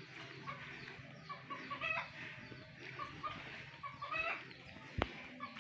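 Chickens clucking faintly, short calls coming every second or so, with a single sharp knock about five seconds in.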